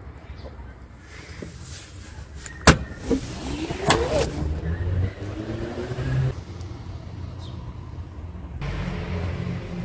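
Car rear seat belt being handled: a sharp click, then the webbing drawn through its retractor with a whirring sound that rises and falls in pitch, over a low steady rumble.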